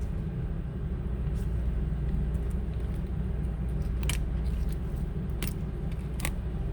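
Steady low hum, with three sharp clicks in the second half as a MacBook logic board, held by its stuck heatsink, is pried and tugged against the case.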